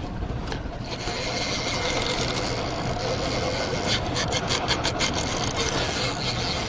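Heavy spinning reel and line working under load from a hooked hammerhead shark: a steady rasp, with a quick run of about eight even clicks about four seconds in.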